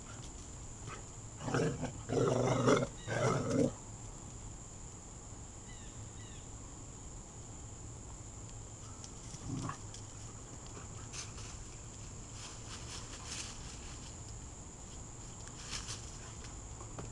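Dogs play-growling: three growls close together about two seconds in, then a single faint one about halfway through.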